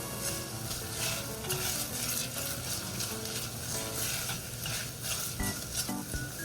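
Food sizzling in a frying pan while a utensil stirs and scrapes it, with frequent short scrapes over a steady sizzle.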